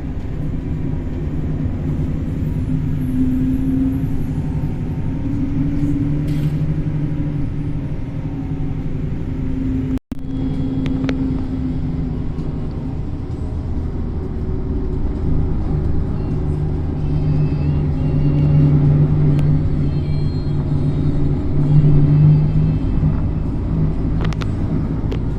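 A motor vehicle's engine running steadily with a low rumble. The sound cuts out for an instant about ten seconds in.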